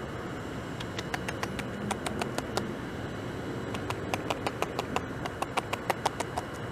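Beaver gnawing bark off a log: two runs of quick, crisp bites, about five or six a second, over a steady background rush.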